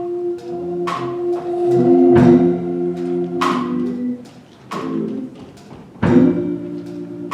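Slow instrumental music: sustained chords with bell-like strikes about once a second, the chord changing twice.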